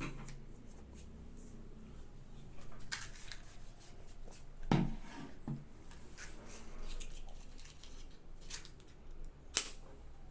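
A few separate sharp clicks and light knocks, seconds apart, from equipment being handled; the smoke detector's alarm is not sounding.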